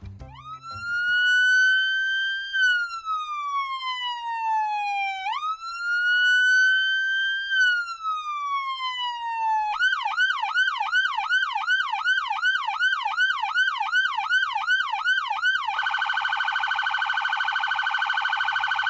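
Police car's electronic siren: two slow wail cycles, each rising and then falling over about five seconds, then switching to a fast yelp of about three sweeps a second, and for the last few seconds to a rapid, almost steady warble.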